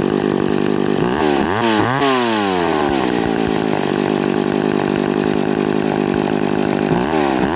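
McCulloch two-stroke chainsaw running at idle, its throttle blipped so the engine revs up and drops back down a few times about a second in, and again near the end.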